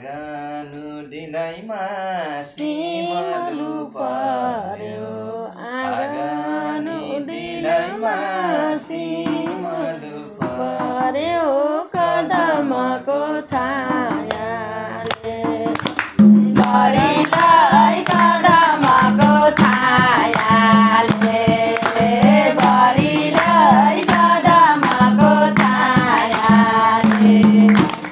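People singing a Nepali Teej folk song to madal hand drum and tambourine. About sixteen seconds in everything gets louder, with a busier, steady drum beat under the singing.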